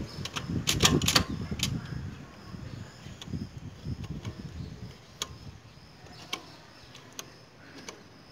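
Socket and extension bar turning a motorcycle's oil drain bolt back in by hand: a quick cluster of metal clicks about a second in, then single light ticks roughly once a second.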